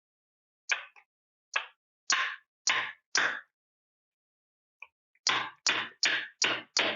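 Hammer blows knocking the crankshaft out of a stuck bicycle-motor crankcase half: a run of five sharp metallic whacks, a pause, then five more in quicker succession.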